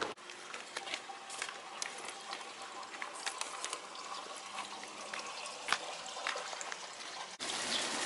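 Spring water trickling and splashing, with many small drips and splashes; the running water gets louder about seven seconds in.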